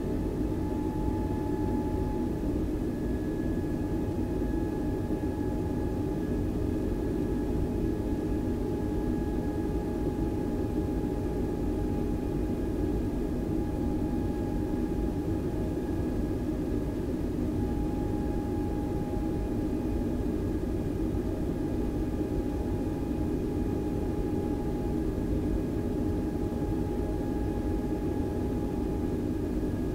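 Airbus A320 cabin noise: a steady low rumble of engines and air systems with a constant thin whine over it. It holds level throughout, with no change in power.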